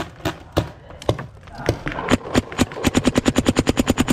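Paintball marker firing: a few scattered shots, then a rapid, even string of about ten shots a second lasting nearly two seconds near the end.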